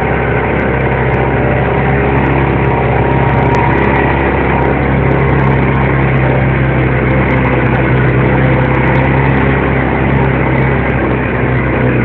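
Jeep's engine running steadily while driving, heard from inside the vehicle.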